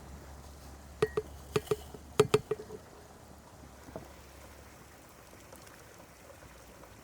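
A quick run of about eight light clinks and knocks of small hard objects being handled, each with a brief ring, followed by one more tap a little later.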